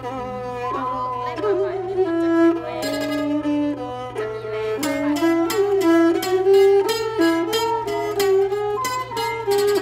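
A jakhe, the Thai crocodile floor zither, plucked with a plectrum, playing a melody. Some notes bend in pitch in the first couple of seconds, then about three seconds in it moves to quickly repeated plucked notes.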